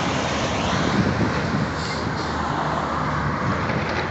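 Road traffic and heavy vehicle engines running at a roadworks, a steady rushing noise with a low engine hum.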